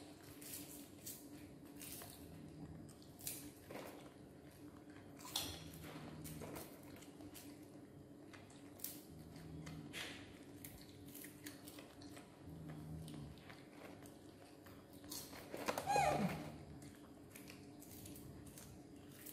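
Two baby monkeys chewing and crunching puffed corn snacks, with many small clicks and crunches. Near the end a brief pitched, wavering voice-like sound is the loudest moment.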